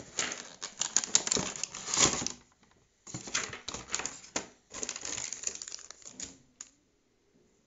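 Clear plastic packaging tray being handled, crackling and clicking in three bursts of a second or two each, with a last single click about six and a half seconds in.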